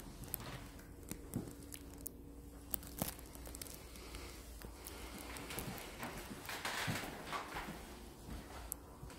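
Light footsteps on a hardwood floor with scattered small clicks and knocks, and a brief rustling swell about seven seconds in.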